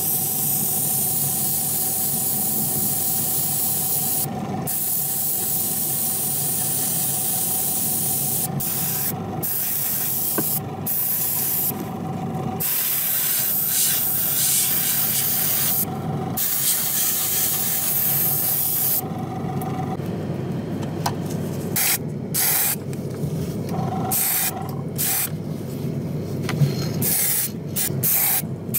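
Airbrush hissing as it sprays paint, cutting off and starting again a few times as the trigger is let go, in short quick bursts over the last third. A steady low hum runs underneath.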